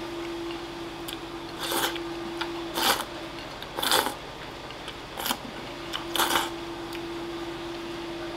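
A person eating from a bowl held to the mouth with chopsticks: short slurps about once a second, five in all, against a faint steady hum that stops for a few seconds in the middle.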